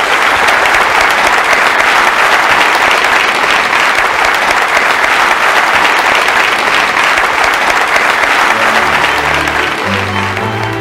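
Audience applauding steadily. About eight and a half seconds in, music with low sustained notes comes in under the applause as it fades.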